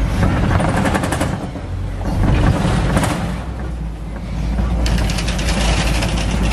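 Safari tour truck driving over a rough dirt track: a low, steady engine and road rumble with bursts of rapid rattling and clattering as the vehicle jolts over bumps.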